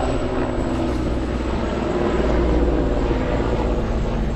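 Inline skate wheels rolling over paving stones: a steady, loud rolling noise.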